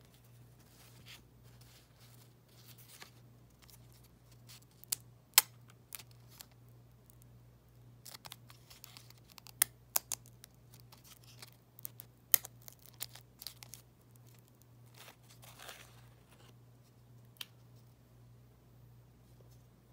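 Stiff old trading-card cardboard being handled and a slab of still-sticky pack gum being peeled off a sticker card: scattered sharp clicks and snaps with a few short scraping, tearing stretches.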